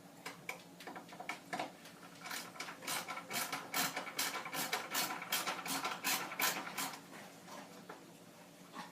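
A screw turned with a screwdriver into a lock nut held with pliers, making a run of sharp clicks: a few scattered at first, then a steady series of about three to four a second from about two seconds in that stops near seven seconds.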